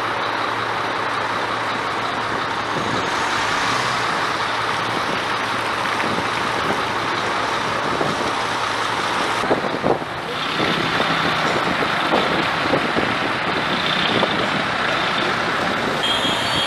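Steady outdoor noise of a running truck engine with street traffic, with a few short knocks in the second half.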